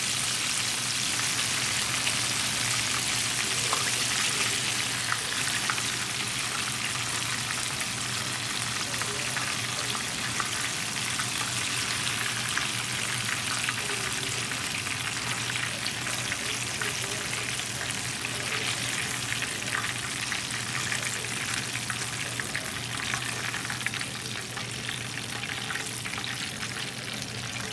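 Chicken drumsticks deep-frying in hot oil in a cast iron pan: a steady sizzle peppered with small crackles and pops, easing slightly near the end as the pieces are lifted out. A steady low hum runs underneath.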